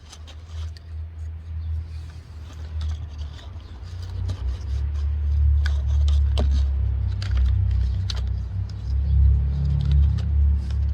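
A low rumble that grows louder about four seconds in, with scattered light clicks and taps from handling the recoil starter and its new rope.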